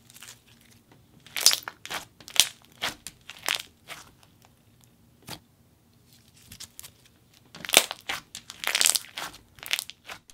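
Thick pink semi-foam slime with foam beads being stretched and pulled apart, giving irregular bubble pops and crackles, in clusters around a second and a half to three and a half seconds in and again near the end.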